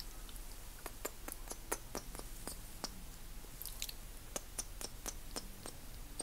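Wet mouth clicks and smacks of lips and tongue close to an ASMR microphone, coming in irregular runs of quick sharp clicks.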